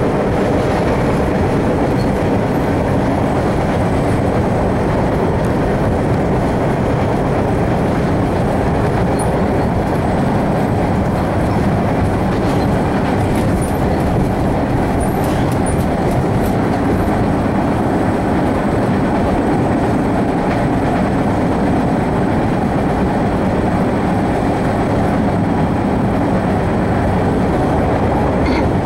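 Steady running noise of an MBTA Red Line subway car in motion, heard from inside the car: a continuous rumble of wheels on rail and running gear.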